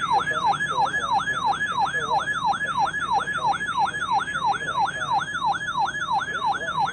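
Electronic weather alert tone: a shrill siren-like sweep falling in pitch, repeated about three times a second, sounding as the attention signal ahead of a National Weather Service severe thunderstorm watch message.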